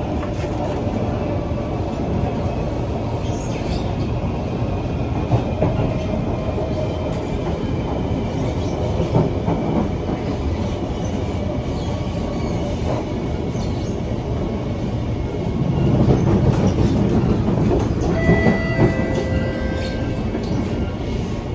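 Interior of a Kawasaki C151 metro car running at speed: a steady rumble of wheels on rail that grows louder about three-quarters of the way through, with a few thin high tones near the end.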